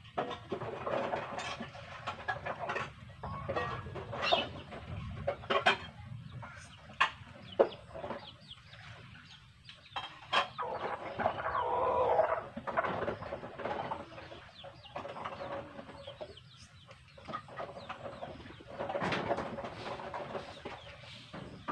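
Chickens clucking: short calls scattered throughout, with a longer call about twelve seconds in.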